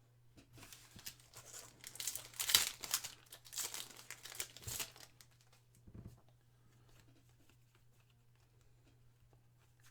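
Wrapper of a football trading-card pack being torn open and crumpled, a few seconds of crinkling rustle, with a soft thump about six seconds in.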